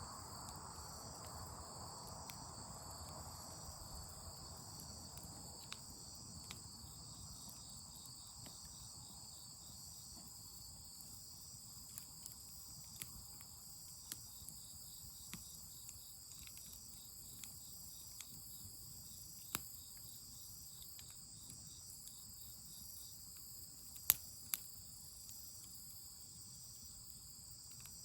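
Steady, pulsing chorus of crickets chirping, with scattered sharp pops and crackles from a campfire, two louder pops about two-thirds of the way through.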